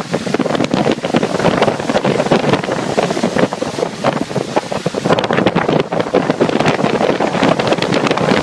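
Hurricane-force storm wind buffeting a phone's microphone in loud, irregular gusts.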